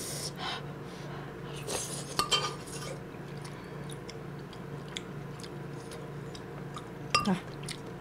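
A metal spoon scraping and clinking against an earthenware stew pot and a bowl while scooping kimchi stew and tofu, with soft chewing between the clinks. The clinks come in small clusters, most of them in the first couple of seconds.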